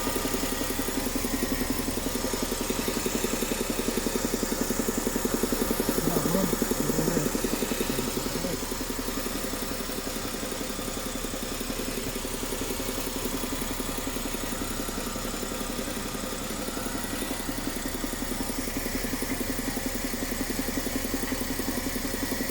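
Idling car with a fast, steady knocking from its ZF 8HP45 eight-speed automatic transmission; the knock started after the gearbox was assembled incorrectly.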